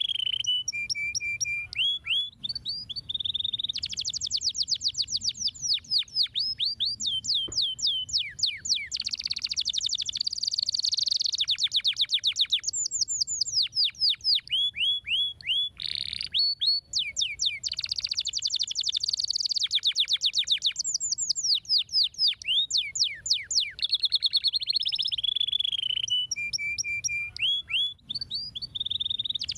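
Domestic canary singing a long song of rapid trills: fast sweeping notes repeated many times a second, in phrases that keep changing from low rolling notes to high ringing ones, with a brief break about sixteen seconds in.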